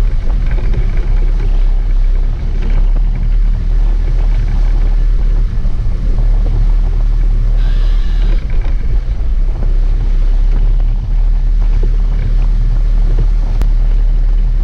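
Sport-fishing boat's engines running with a steady low rumble, with wind buffeting the microphone; a brief higher-pitched sound cuts in about eight seconds in.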